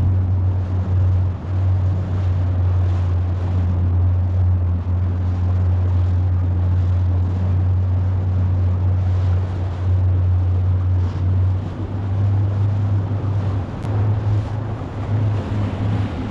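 Small fishing tender's outboard motor running steadily under way: a low drone under a steady hiss, which shifts a little near the end.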